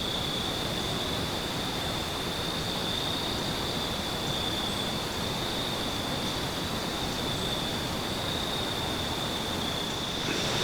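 Crickets trilling steadily in one continuous high-pitched band, over an even background hiss.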